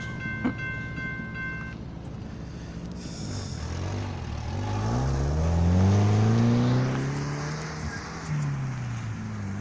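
An engine speeding up, its pitch climbing steadily for about three seconds and then dropping away near the end.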